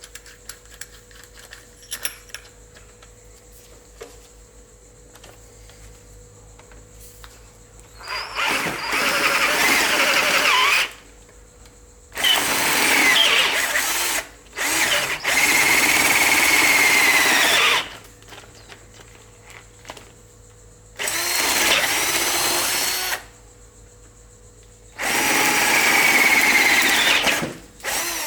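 Cordless drill with an 8 mm bit boring out the holes in a motorcycle fork damper rod. It runs in about five bursts of two to three seconds each, with brief pauses between them, some with a squealing tone from the bit. Before the drilling, a few seconds of near-quiet with small clicks.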